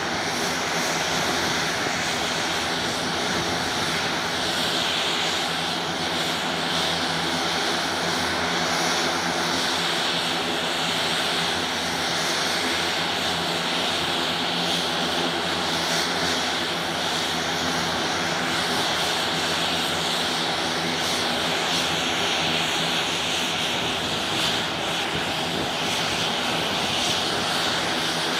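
Twin Garrett TPE331 turboprop engines of a Beech B100 King Air running steadily, both propellers turning.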